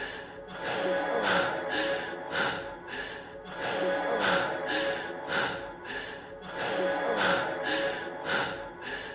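A man's heavy breathing, quick breaths repeating in a steady rhythm, over the song's backing music.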